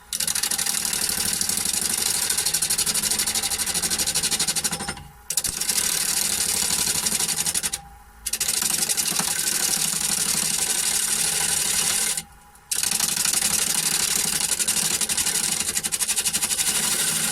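Bowl gouge cutting wood spinning on a Holzmann D460FXL wood lathe: a loud, hissing scrape with a fast ripple, made in four passes broken by three brief pauses.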